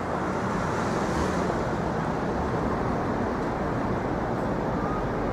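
Steady street traffic noise: a continuous wash of passing cars and city hum.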